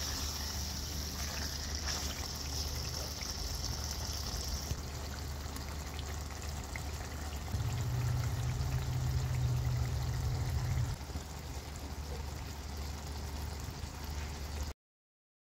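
Qeema karahi, minced meat in oil in an iron wok, bubbling and sizzling steadily over a low hum. A high hiss in the sizzle drops away about five seconds in.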